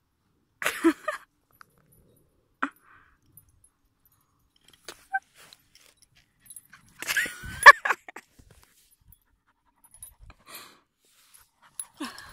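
A puppy and an older dog play-fighting: a few short, scattered dog sounds, brief whimpers and pants with quiet gaps between, the loudest burst about seven seconds in.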